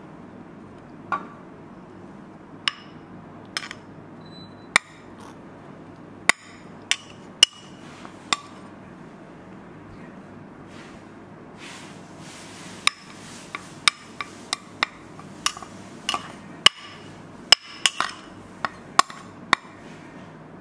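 A string of sharp, irregular clinks and taps of kitchenware, some with a short ringing tone, about twenty in all with a pause in the middle, as grated cheese is shaken out over the quiche filling.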